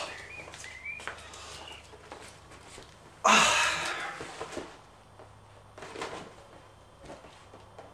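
A man's loud wordless exclamation about three seconds in, starting suddenly and fading over about a second, with faint knocks and rustling around it as he settles onto the sofa holding a box and a beer stein.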